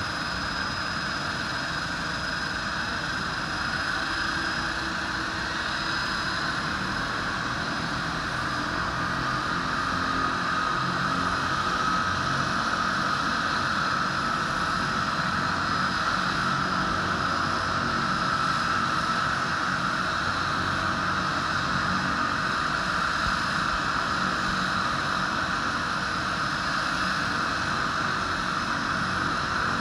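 De Havilland Canada DHC-6-300 Twin Otter's Pratt & Whitney Canada PT6A-27 turboprop engines running after start: a steady turbine whine over propeller noise, growing a little louder about ten seconds in and then holding steady.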